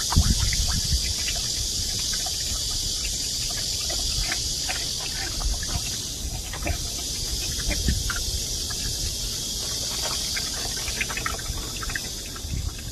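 Mini pig crunching ice cubes and slurping in a tub of iced water, with many short sharp crunches and splashy knocks scattered throughout. A steady high hiss runs underneath.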